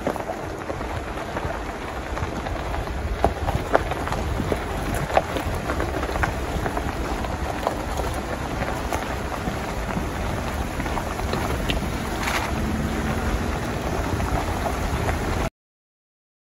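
Jeep Rubicon driving on a rough backroad: steady tyre and road noise over a low engine rumble, with scattered clicks and knocks. It cuts off suddenly near the end.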